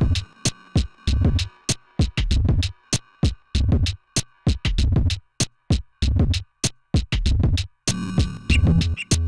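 Background music with an electronic drum-machine beat: deep bass thuds and quick, sharp high ticks in a steady rhythm.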